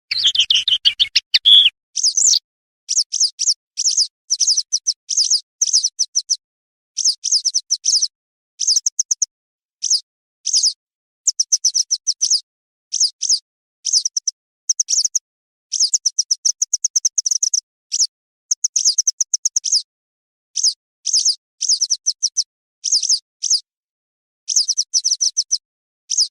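Western yellow wagtail calls: short, high chirps in quick clusters, repeated over and over with dead-silent gaps between them. A lower sound that falls in pitch runs through the first two seconds.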